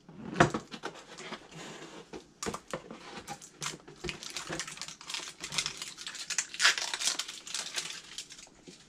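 Crinkling and rustling of packaging with many small clicks and taps: a cardboard display case being handled and plastic blind-box capsules and their figure bags being opened.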